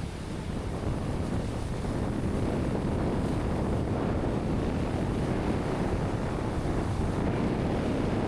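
Wind buffeting the action camera's microphone over the steady wash of ocean surf breaking on the shore. It is a dense low rushing noise that grows a little louder about a second in.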